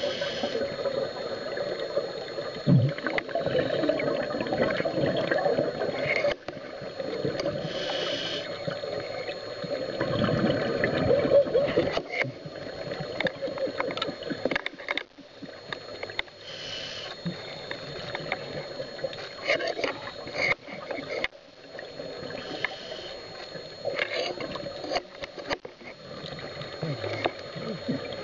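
Muffled water noise heard through an underwater camera housing, with a short hiss every several seconds.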